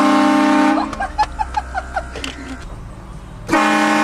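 A four-trumpet train horn on a vehicle, fed by an onboard air compressor, sounding a loud steady chord twice: a blast of about a second at the start and another of about a second beginning about three and a half seconds in.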